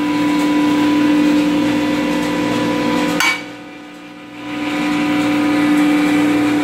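Grizzly G0813 jointer running on its first start-up: a steady electric motor and cutterhead hum. About three seconds in there is a sharp click and the hum cuts out suddenly, then builds back up over about a second and runs steadily again.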